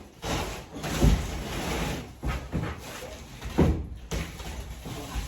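Welding on galvanized steel roller track: a noisy crackle of the welding arc, with two heavy knocks, about a second in and again about three and a half seconds in.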